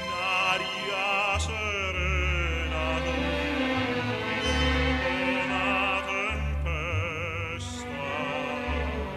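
Music: an operatic voice singing with a wide vibrato over orchestral accompaniment.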